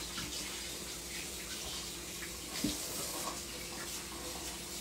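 Kitchen sink tap running in a steady rush of water as a hand is rinsed under it, with a brief knock a little past halfway through.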